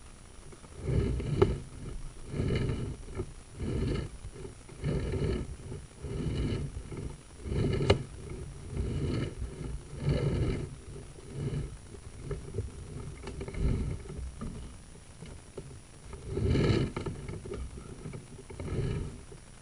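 Sewer inspection camera and its push cable moving through the drain line as the cable is pulled back by hand. It makes a series of rubbing strokes about one every second or so, with a louder stroke near the end.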